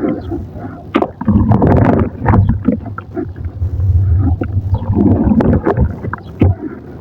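Thick wet mud paste squelching as it is worked, with a dense run of sticky little pops and clicks.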